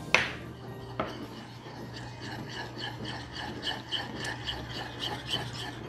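Metal spoon stirring honey and melted butter in a small bowl, scraping and clinking against the sides at about three strokes a second. Two sharp taps of the spoon on the bowl come in the first second.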